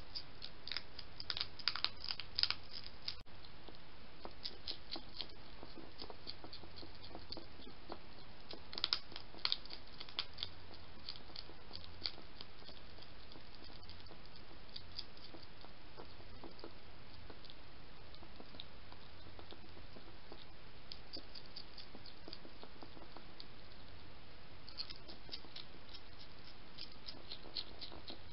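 European hedgehog eating from a dish: bursts of rapid, wet clicking chews and smacks with short pauses between them, over a steady hiss.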